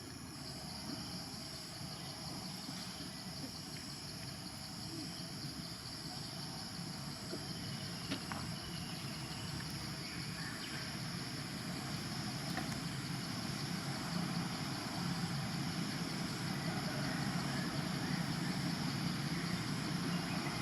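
Steady outdoor background noise: a low rumble like distant traffic that grows louder near the end, under a steady high drone, with a few faint clicks.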